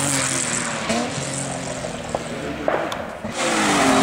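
Race car engines on a closed road: a BMW 3 Series drives away with its engine note stepping down in pitch and fading, then a little over three seconds in another car's engine comes up loud as it approaches.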